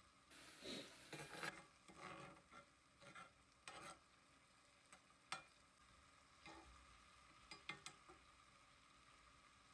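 Kitchen utensil stirring and scraping in a pan: a longer scrape in the first second and a half, then scattered short scrapes and light clicks.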